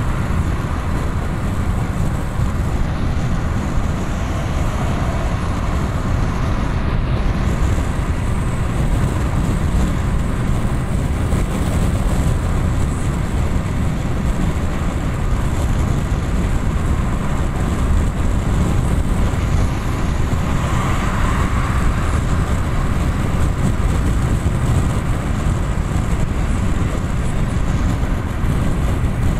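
Steady road noise of a car driving along a highway, heard from inside the car: a low rumble of tyres and engine under a hiss of wind and traffic, with one brief swell a little after two-thirds of the way through.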